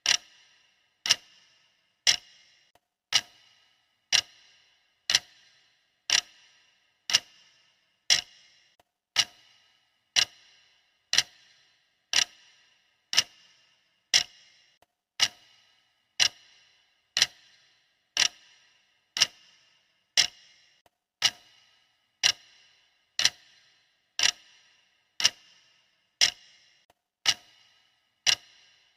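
Clock ticking steadily, one sharp tick per second, each tick with a short bright ring.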